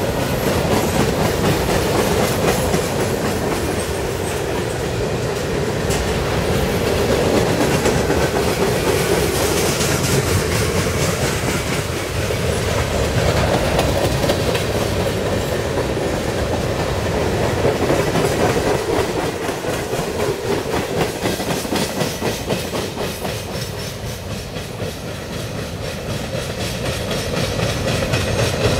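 CSX freight train's cars rolling past at steady speed: a continuous rumble of steel wheels on rail, with fast clicking over the track.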